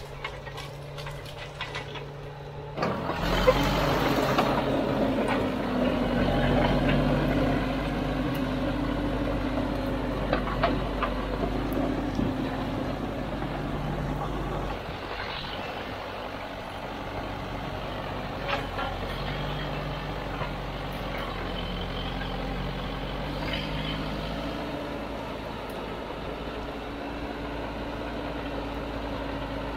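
Caterpillar D4 7U crawler dozer's four-cylinder diesel engine working under load as the dozer pushes through cut gorse, with occasional sharp knocks and cracks. The engine comes in loud about three seconds in and drops to a steadier, quieter level about halfway through.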